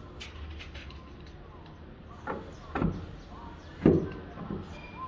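Hammer driving a nail into wood: four blows in the second half, the third the loudest, after a couple of seconds of faint small knocks.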